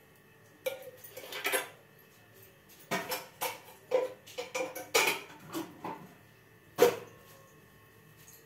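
Metal kitchen utensils and dishes clinking and knocking as they are handled, a scattered run of clatters over several seconds, the loudest one near the end.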